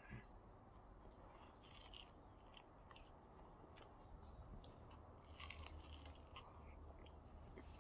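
Faint chewing and crunching of a person eating a shawarma wrap, a scatter of soft short clicks.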